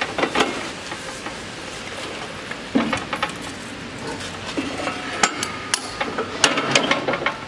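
Steel parts of an HR2-40 manual soil-brick press clanking as its long lever is worked to compress and then eject the soil bricks. There are scattered sharp metal knocks: one just after the start, a cluster around three seconds in, and several more in the last two and a half seconds.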